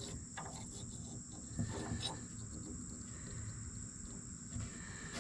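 Faint steady high-pitched insect trill, with a few light clicks of small metal parts being handled.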